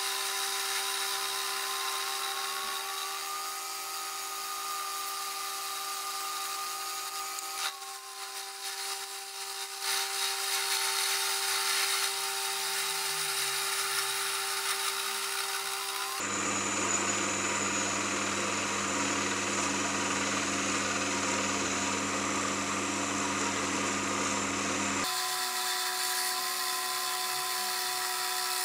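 Mini metal lathe running while its tool bit cuts an aluminium bar: a steady motor whine with a higher cutting tone over hiss. The pitch and character shift abruptly three times, near 8, 16 and 25 seconds in.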